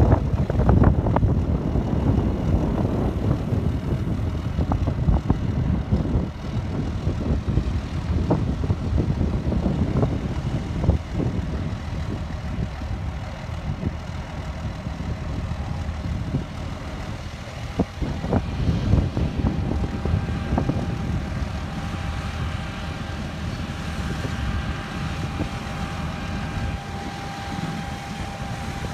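John Deere S-series combine running while harvesting wheat: a heavy, steady low engine and machinery rumble, with a steady whine coming in about two-thirds of the way through.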